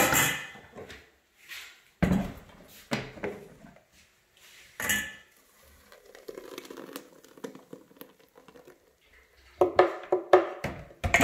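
Kitchenware clattering: a few sharp knocks, then thick blended beetroot and nettle juice pouring from a blender jug through a metal mesh sieve into a stainless steel bowl, with a quick run of metal clinks near the end.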